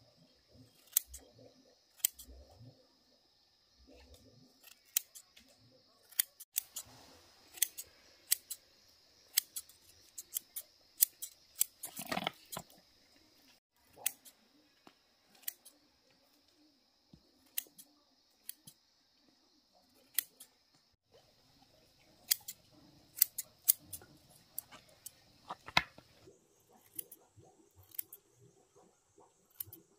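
Irregular sharp snipping clicks, roughly one or two a second, with a louder cluster about twelve seconds in, over a steady high drone of insects. The drone shifts higher in pitch near the end.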